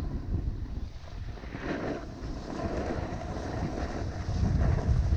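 Wind buffeting the microphone of a skier moving downhill: a low, rushing rumble that gets louder near the end, with the hiss of skis sliding over snow.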